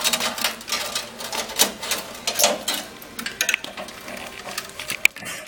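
Rapid, irregular clicking and rattling of metal parts being handled, as the cryostat's e-valve assembly with its copper tubing is worked loose and pulled out.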